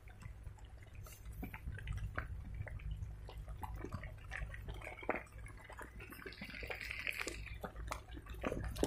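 Rain falling close to the microphone: irregular drips and taps of raindrops over a low, steady rumble.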